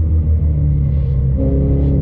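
Ford Mustang GT's 5.0-litre V8 heard from inside the cabin while lapping a track: a loud, steady low rumble, its note changing about one and a half seconds in.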